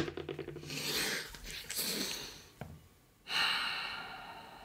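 A man groaning and breathing out heavily, then a long exasperated sigh starting about three seconds in that slowly trails off.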